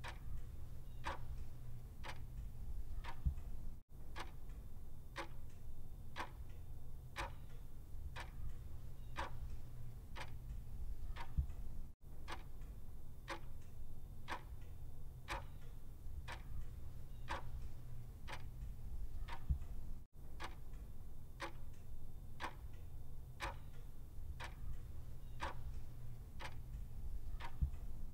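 Clock ticking at an even, steady rhythm, over a low hum, with a brief break about every eight seconds.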